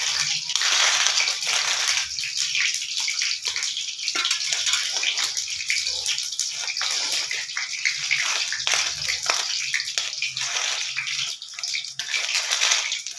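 Hand mixing and squeezing flour with chopped onion and vegetables in a steel bowl: a continuous rustling and scraping of the mixture against the metal, made of many quick strokes.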